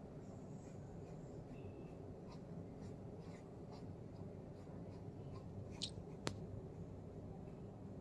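Faint scratching and light tapping of a paintbrush working acrylic paint on a canvas board, over a low steady room hum, with one sharp click about six seconds in.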